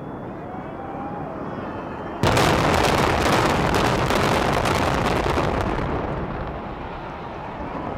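Building implosion of the 16-story reinforced-concrete Frontier Hotel: about two seconds in, the demolition charges go off in a sudden loud rapid string of cracks for about three and a half seconds, which then fades into the rumble of the collapsing structure.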